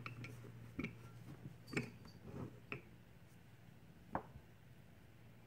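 Light knocks and clicks as a loaf of cold process soap is set down and shifted on the stone base of a wire soap cutter, about five small taps spread over a few seconds, over a faint steady low hum.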